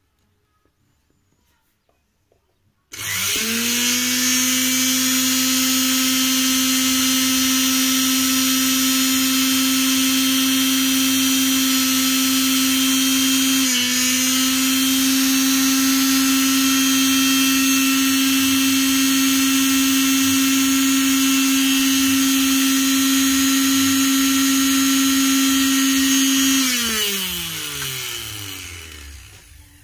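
Mixer grinder's bare universal motor, its armature freshly repaired, switched on about three seconds in. It spins up quickly to a loud, steady high whine with a brief dip near the middle, then is switched off near the end and winds down with a falling pitch.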